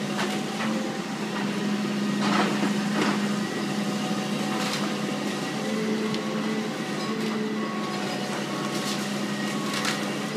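Demolition of a wooden house: a machine runs with a steady hum while timber cracks and crashes come every few seconds as the structure is struck and breaks apart.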